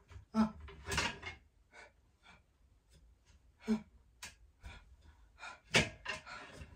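A man's nervous breathing as he braces himself to jump: quick gasps and breathy sighs in short separate bursts, with two brief grunts, the loudest gasp near the end.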